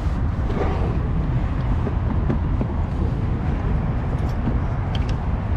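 Steady low outdoor rumble, with a few faint clicks and knocks as a Tefal air fryer's plastic body and lid are handled.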